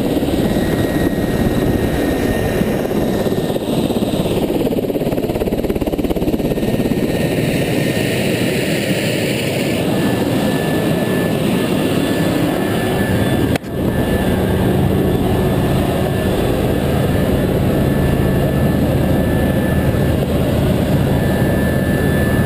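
Large military transport helicopter running on the ground with its rotor turning, a continuous loud rotor and engine din. After an abrupt cut about two thirds through, it is heard from inside the cabin, with a steady engine whine over the noise.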